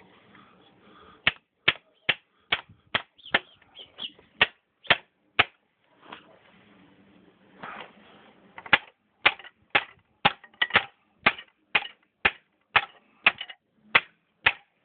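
A hammer striking, sharp single blows at about two a second, in two runs with a pause of a couple of seconds in the middle.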